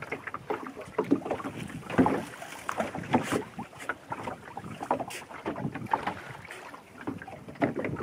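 Small waves slapping and lapping against the hull of a small boat in irregular splashes, several a second.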